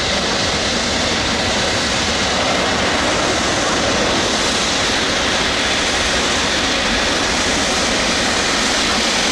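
Boeing 777-300ER's GE90 turbofan engines giving a steady jet roar, an even rushing noise that holds without change.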